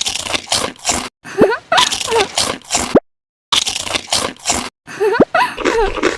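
Close-miked mukbang eating sounds: crunchy bites and wet, squishy chewing in short edited bursts that cut off abruptly into silence, with short squeaky gliding tones mixed in.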